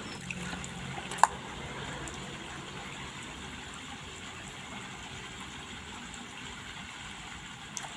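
Faint water splashing and dripping as wet hands wash a dog's wet face and fur, with one sharp click about a second in.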